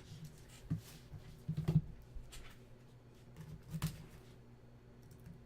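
Trading cards and their packaging being handled: a few short taps and rustles, the loudest about a second and a half in, over a faint room hum.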